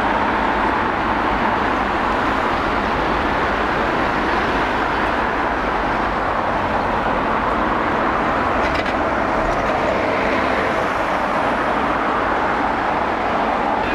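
Steady city-street traffic noise, with cars and a bus going by.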